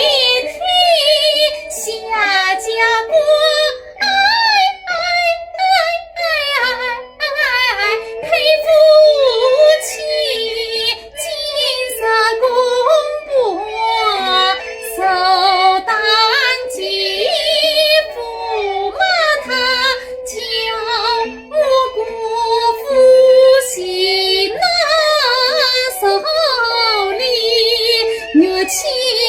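Wuju opera singing: a high female voice sings a wavering melody with heavy vibrato, over instrumental accompaniment punctuated by sharp percussion clicks. It is recorded directly on a phone microphone.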